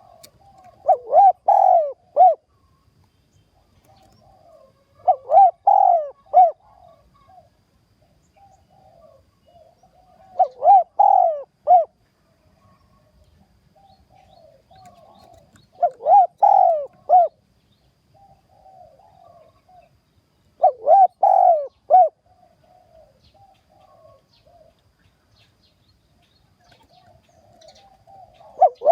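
Spotted dove cooing its song over and over: a phrase of three or four loud coos about every five seconds, with softer low cooing between phrases. This is a decoy call for luring wild spotted doves to a trap.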